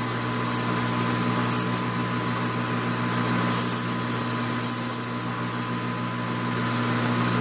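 Metal lathe running at slow spindle speed with a collet chuck turning, a steady motor and gear hum.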